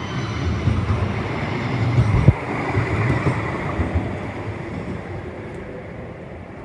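CAF Urbos 100 tram passing close by, its wheels rumbling on the rails with a few sharp knocks about two seconds in. The noise is loudest two to three seconds in, then fades as the tram moves away.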